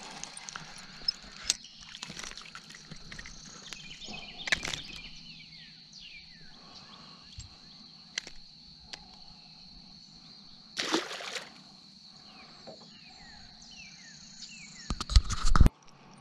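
Lakeside ambience: a steady high-pitched insect drone with a few quick falling chirps, scattered light knocks and a brief rush of water or handling noise while a caught bass is unhooked over the boat's bow. A loud rumbling burst of handling noise on the microphone near the end.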